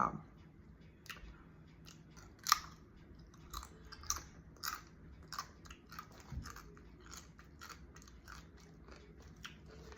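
Someone chewing crunchy chips: short crisp crunches, the loudest about two and a half seconds in, then crunching about twice a second that fades out over the last few seconds.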